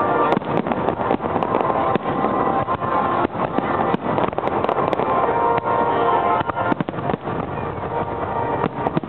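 Aerial fireworks shells bursting in quick succession: a continuous barrage of overlapping bangs and crackles with no pause.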